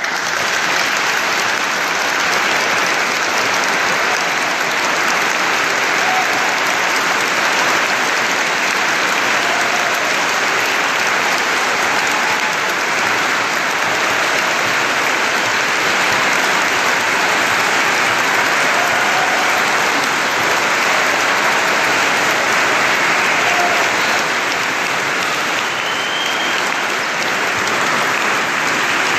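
Large congregation applauding, breaking out suddenly and then holding steady and loud, in a big church, greeting the newly ordained deacons.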